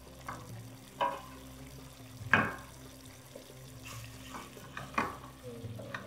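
Wooden spoon stirring and turning chicken pieces in a stainless steel pot, knocking against the pot about seven times, loudest a little over two seconds in, over a faint sizzle of the chicken cooking in its sauce.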